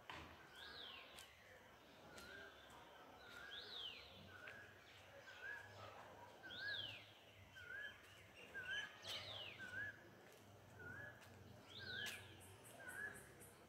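Faint birdsong: one bird repeats a short chirp about twice a second, while another gives a louder whistle that sweeps up and down every two to three seconds.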